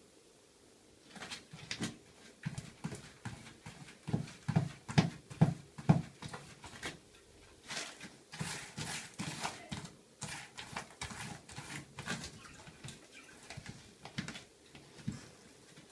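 Cat pawing and scratching the granular litter in a plastic toilet-training tray: a run of quick scrapes and soft thuds that starts about a second in, loudest between about four and six seconds in.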